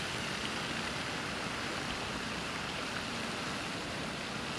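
Steady, even rushing noise outdoors, with a few faint ticks and no distinct event.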